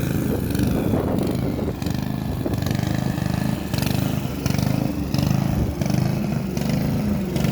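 Hyundai HY145V petrol lawn mower engine running on the last of its petrol, its level rising and falling in a regular pulse.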